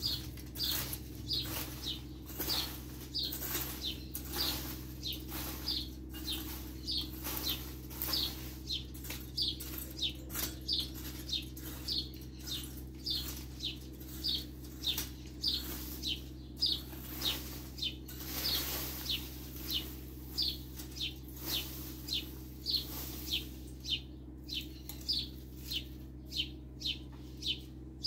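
Garden rake scraped across a bare dirt yard in quick, even strokes, about two a second, each a short scratchy rasp.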